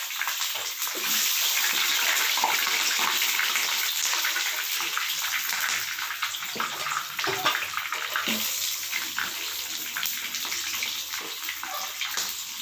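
Frozen hash brown patties frying in bubbling hot oil in a pan: a steady sizzle with scattered crackles and pops.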